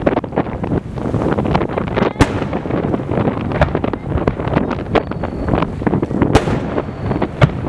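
Large aerial firework shells bursting in rapid succession: a continuous rolling rumble of booms, with sharper single bangs standing out about two seconds in and twice near the end.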